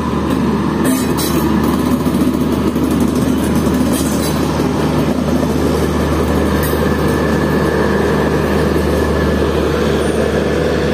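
Indian Railways Garib Rath express with older ICF coaches, hauled by an electric locomotive, rolling steadily past along the platform. A continuous rumble of wheels on the track, with a steady low hum and a few clanks in the first few seconds.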